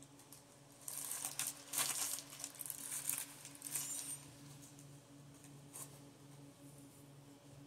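Close-miked biting and chewing of a Carl's Jr. Western Bacon burger: a run of crisp, crackly mouth noises for about three seconds starting a second in, then softer chewing. A faint low hum runs underneath.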